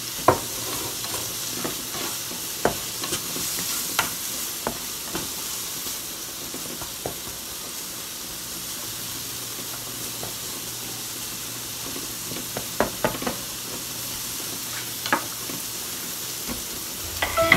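Diced bell peppers sizzling in a frying pan with a steady hiss, stirred with a slotted spatula that clicks and scrapes against the pan now and then, in a few bunches.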